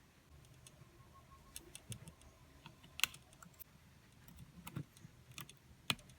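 Irregular light clicks and taps of small phone parts being handled, with sharper clicks about three seconds in and near the end.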